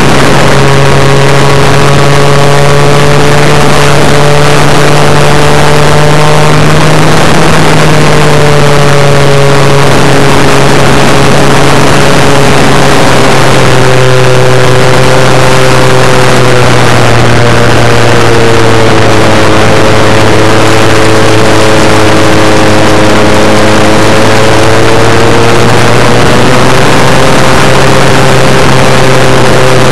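Brushless electric motor and propeller of an RC Super Cub model plane in flight, heard through the plane's onboard camera: a loud, steady whine whose pitch sinks and rises slowly with the throttle, over a heavy hiss of wind noise.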